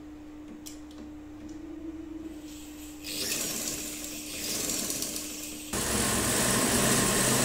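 Domestic sewing machine running, stitching cloth, starting about three seconds in. Near the end a louder steady rushing noise takes over.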